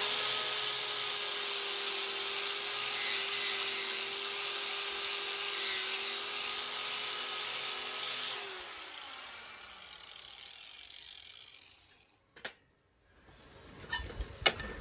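Corded angle grinder with a wire brush running steadily against a rusty steel bar, scouring off rust to bare metal before welding. After about eight and a half seconds the trigger is released and the motor winds down over a couple of seconds. A few sharp knocks follow near the end.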